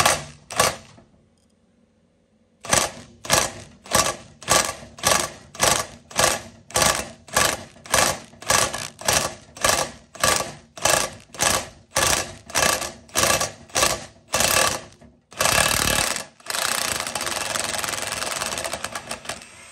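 A ratchet wrench worked in quick strokes, about two a second, each stroke a short burst of clicking, as a seized, broken spark plug is backed out of an old cast-iron cylinder head. Near the end it gives way to about four seconds of continuous rough rattling noise.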